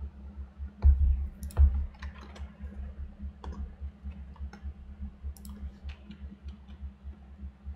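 Clicks and taps of a computer keyboard and mouse: two heavier knocks about a second in, then lighter scattered clicks, over a steady low hum.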